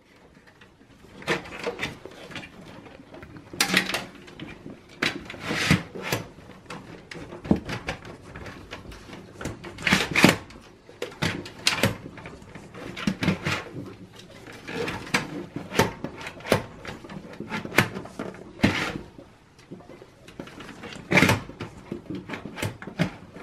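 Irregular plastic and metal clicks, knocks and rattles of hands working an optical drive and its blue plastic drive bracket loose from a Dell Precision T5500 workstation's drive bay. The loudest knocks come about ten seconds in and again near the end.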